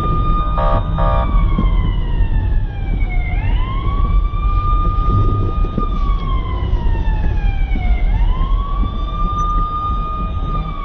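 Emergency-vehicle siren wailing in slow sweeps, rising, holding and falling about every five seconds, over a steady low rumble. Two short beeps sound about half a second in.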